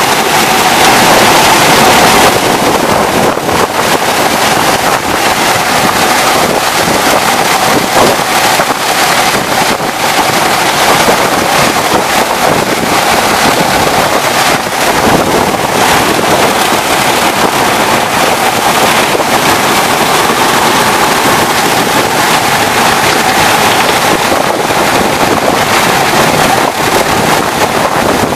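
Sugar mill cane-preparation machinery running: the cane carrier and rotating cane knives make a loud, steady mechanical noise with a constant hum.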